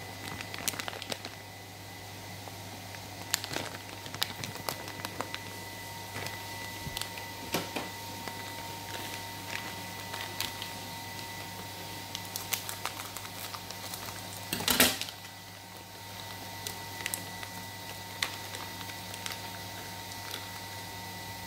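Plastic food packaging crinkling and crackling as it is handled and opened, in irregular sharp clicks with a louder burst of crackling about two-thirds through, over a steady electrical hum.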